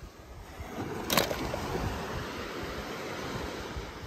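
Wind buffeting the microphone over surf noise on the beach, with one sharp click about a second in.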